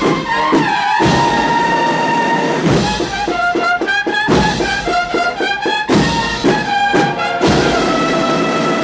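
A Spanish Holy Week agrupación musical band playing a processional march: cornets and trombones carry the melody over marching drums.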